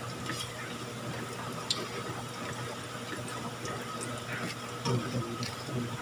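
Grated sweet potato pancakes frying in hot oil in a wok: a steady sizzle and hiss with occasional small pops and crackles.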